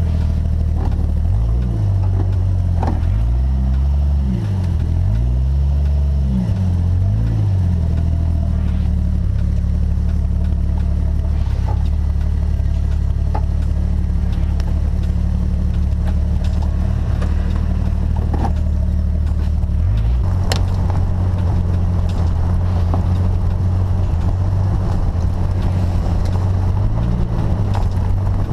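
Jeep engine running while driving a rough dirt trail. It revs up and down several times over the first seven seconds, then runs steadier, with occasional clunks and rattles from the vehicle over bumps.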